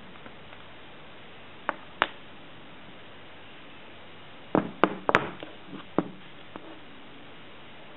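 A few sharp knocks and taps, as of hard objects struck or set down: two about two seconds in, then a quick cluster of five or six around the middle, and a lighter one later.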